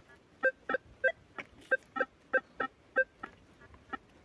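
Versa metal detector giving repeated short beeps, about three a second and alternating between a low and a high tone, as the coil passes over a buried target; the signal is a so-so one.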